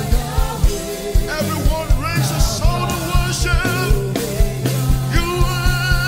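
Live gospel worship music: a male lead singer with backing vocalists over a band, with a steady bass line and a regular drum beat.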